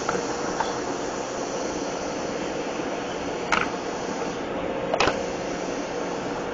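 Steady machine hum with a faint steady tone, broken by two short, sharp clicks about three and a half and five seconds in.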